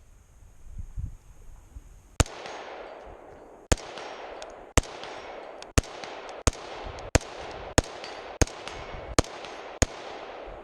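AR-15 with a 10.5-inch barrel firing ten single shots, the first two about a second and a half apart, then quickening to roughly one every two-thirds of a second, each shot trailed by a lingering echo.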